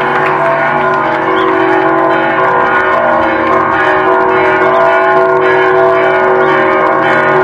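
Church bells ringing continuously, several steady tones overlapping.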